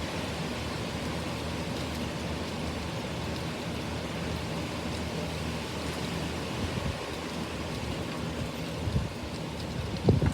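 Heavy rain pouring steadily in a strong windstorm, an even rushing hiss. Near the end come a couple of low thumps of wind buffeting the microphone.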